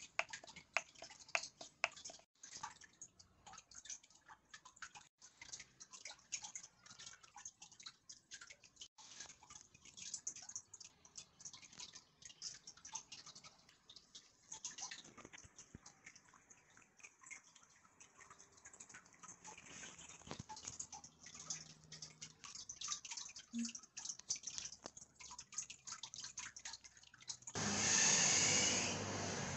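Irregular sharp clicks of the Edifier D12's volume knob push button being pressed, coming thick and fast at first and thinning out after about fifteen seconds. Near the end a loud steady rushing noise comes in.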